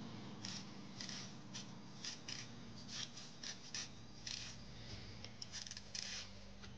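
A raw potato being peeled by hand: a quick, irregular series of short, faint scraping strokes of the blade across the skin, about two a second.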